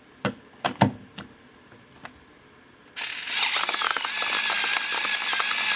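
A few light clicks. About three seconds in, the FinaMill battery-operated pepper mill's motor starts and runs steadily, grinding large Himalayan pink salt granules with a dense crackling crunch.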